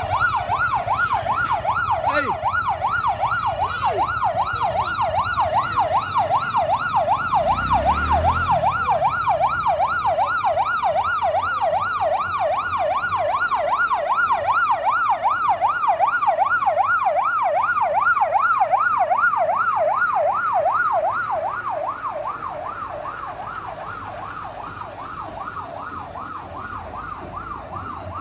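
Fire truck siren yelping, a rapid up-and-down wail that repeats steadily. It grows fainter after about twenty seconds as the truck moves past.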